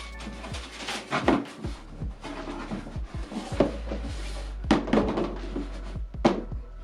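Handling noise from a cardboard shoebox and the shoes inside it: irregular rustling, scraping and light knocks as things are moved and lifted out.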